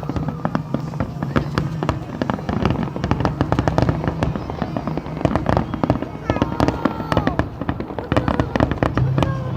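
Fireworks display going off in a dense barrage: many sharp bangs and crackles in quick succession, with no pause.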